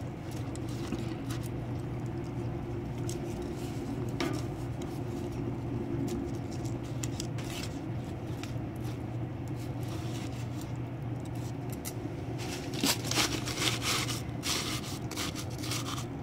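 Wood sticks rubbing and scraping against the concrete-block feed tube of a rocket mass heater as kindling is fed into the fire, with scattered clicks and crackles that come thicker near the end. A steady low hum runs underneath.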